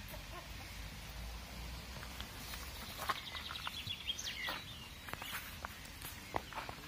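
A small songbird sings a short, fast trill that ends in a quick flourish of sweeping notes about three seconds in, over faint outdoor background noise with a few scattered light clicks.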